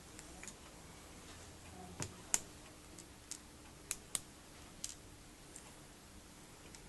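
Scattered light clicks and taps, about seven spread over several seconds, the loudest a little over two seconds in, from flat-pack vanity cabinet panels and small fittings being handled during assembly.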